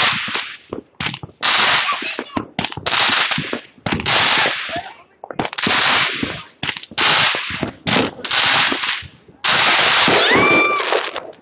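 Fireworks going off in quick succession: about a dozen loud bangs, each starting suddenly and dying away within a second, with a brief rising tone near the end.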